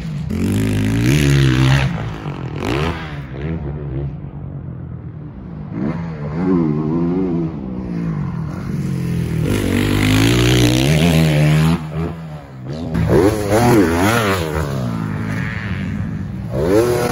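Motocross dirt bike engines on the track, revving up and dropping back several times as riders work the throttle through jumps and corners.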